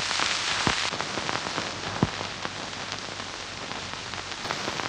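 Dense, rain-like hiss with many small crackles scattered through it, loudest in the first second, and two sharper knocks about 0.7 and 2 seconds in.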